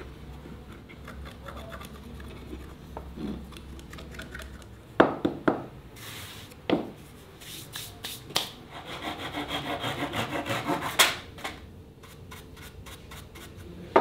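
Wood being worked by hand: a few sharp knocks about five seconds in, then a run of quick rubbing strokes ending in another sharp knock.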